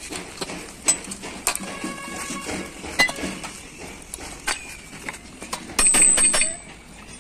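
Steel suspension pins, bushes and brackets clinking and knocking against each other as they are handled and washed by hand in a basin of oil. The knocks come irregularly, with a louder burst of clattering and a brief high ring about six seconds in.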